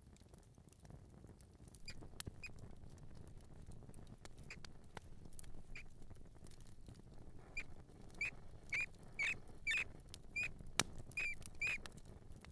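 Mouse squeaking: short, high chirps, a few scattered at first and then many in quick succession in the last few seconds, with faint clicks in between.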